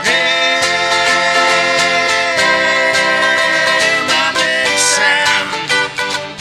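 Acoustic band playing and singing, with guitar and other plucked strings strumming in a steady rhythm under long held notes; the held note changes about two and a half seconds in.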